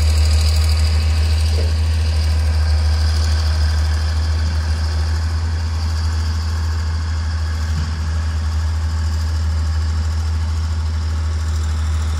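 Vehicle engine idling steadily, heard from on board as a strong, even low hum.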